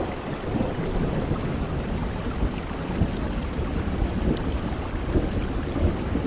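Steady rain falling, a constant dense patter with a low rumble underneath.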